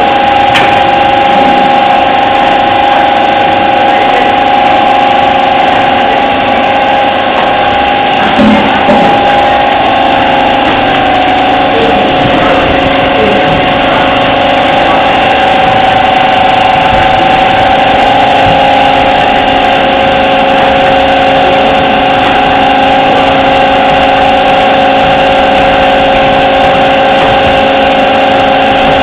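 Multi-track form-fill-seal pouch packing machine running: a loud, steady mechanical hum with a steady whine, and a brief louder knock about eight and a half seconds in.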